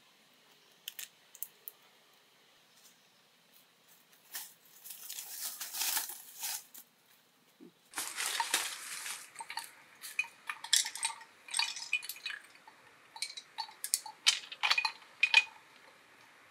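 Dry split-bamboo slats and poles knocking and clattering against each other as a bamboo panel is handled and fitted, with rustling in between. In the second half comes a quick run of sharp knocks, each ringing briefly.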